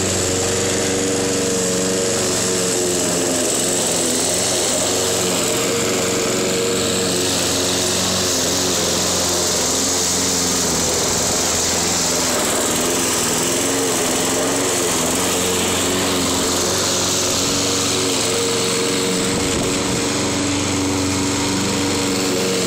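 Red Craftsman walk-behind petrol lawn mower's small engine running steadily at full throttle as it is pushed through tall grass with the bagger on. The engine note wavers slightly now and then under the load of the grass.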